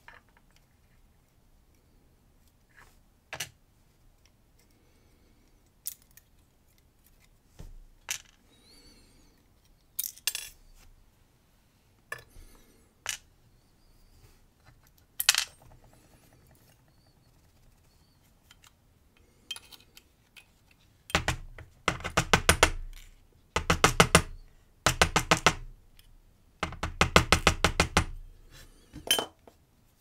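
Small metal clicks and taps as steel tweezers work brass lock pins out of a pin-tumbler cylinder housing and set them down on a plastic pinning tray. Near the end come several bursts of rapid rattling clicks.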